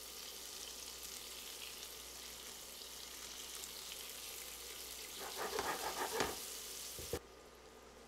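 Shrimp and garlic sizzling steadily in oil and butter in a cast-iron skillet. About five seconds in, a spatula scrapes and knocks against the pan a few times. The sizzle cuts off suddenly near the end.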